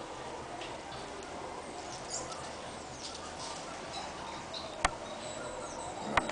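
Faint, scattered high chirps of small wild birds over a steady outdoor background, with a sharp click about five seconds in and two more near the end.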